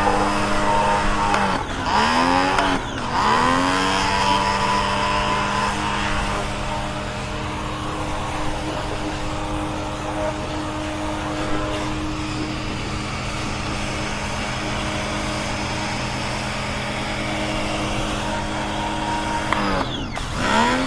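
Karcher K1 electric pressure washer running, its motor and pump giving a steady hum with hiss above it. The pitch sags and recovers twice about two seconds in, and again near the end.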